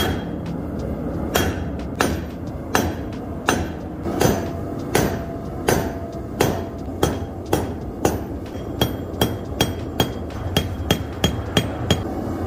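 Short-handled sledgehammer striking red-hot steel bar stock on a chunk of railroad track used as an anvil: forge blows drawing the bar out to a taper, each with a short metallic ring. The blows come about one every 0.7 s, then quicken to about three a second near the end, over a steady low background noise.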